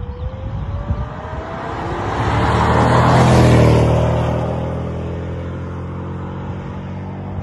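2003 Mercedes CL55 AMG's supercharged 5.4-litre V8 accelerating hard toward and past, with a thin rising whine over the engine note in the first second or so. The engine is loudest as the car goes by about three seconds in, then eases to a steadier, quieter note as it pulls away.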